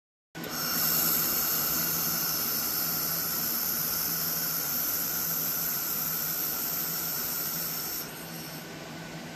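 DenaliWeld Jet handheld laser welder, fed with .035 filler wire, welding an outside corner on 18-gauge stainless steel. It gives a steady high hiss that starts about half a second in and cuts off about 8 seconds in.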